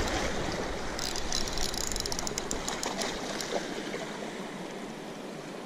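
Steady rush of fast-flowing river water below a dam, with a run of faint rapid ticks from about one to three and a half seconds in.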